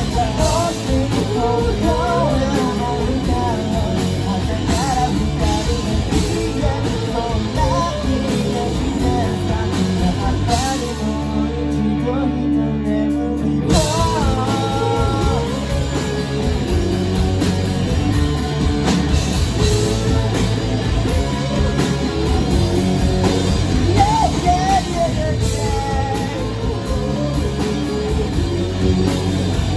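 Live rock band playing: a male lead vocal over electric guitars, bass and a drum kit. About eleven seconds in, the drums drop out for a couple of seconds under a held chord, then the full band crashes back in.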